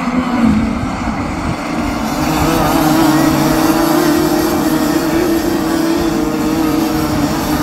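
A pack of Rotax 125cc two-stroke racing kart engines running together at speed, a steady buzz that grows louder about two seconds in.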